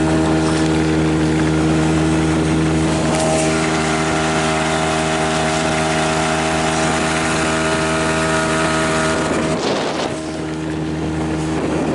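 Tohatsu 5 hp outboard motor running at a steady speed, driving an inflatable boat with two aboard, with water and wind rushing around it. Near the end a brief rush of noise covers the engine note for about a second.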